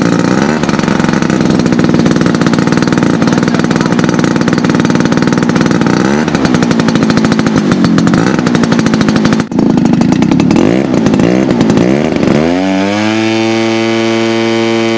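Engine and propeller of a giant-scale RC Spitfire model running loudly on the ground just after starting, with the throttle moved up and down; a brief dip about nine and a half seconds in, then the pitch rises and settles into a steady run near the end.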